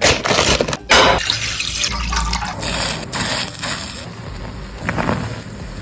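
A few sharp clatters, then liquid being poured and splashing.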